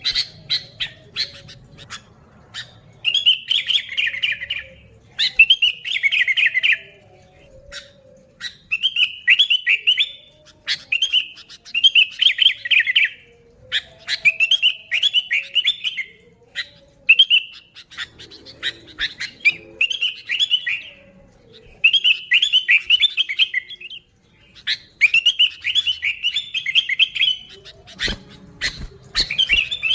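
Sooty-headed bulbul singing, repeating short warbled phrases of a second or so every couple of seconds, with sharp single chirps between them.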